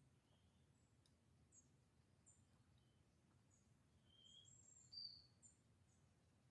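Faint wild birdsong: short high chirps repeated about once or twice a second, with two longer, lower whistled notes about four and five seconds in, the second the loudest.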